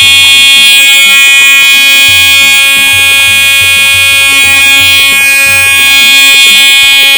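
Round universal electronic horn for electric scooters and mini cars, run from a 48 V battery, sounding one loud, steady buzzing tone without a break and cutting off near the end.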